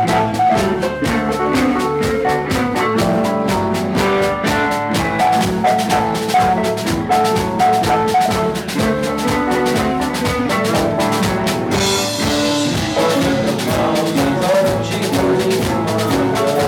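Live rock band playing, with a Korg stage keyboard playing quick runs of notes over a steady drum beat and bass. Cymbals wash in from about twelve seconds in.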